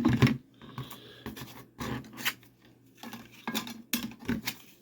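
Scattered clicks, taps and light scrapes of Mandalorian helmet parts being handled and fitted together by hand.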